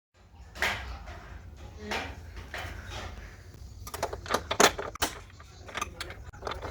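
Knocks and clatter of hard objects being handled and set down, several sharp clicks in quick succession about four to five seconds in, over a steady low hum.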